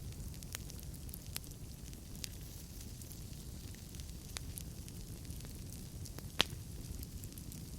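Wood fire burning in a fireplace: a low steady flame rumble with scattered sharp crackles and pops from the burning logs, the loudest pop about six and a half seconds in.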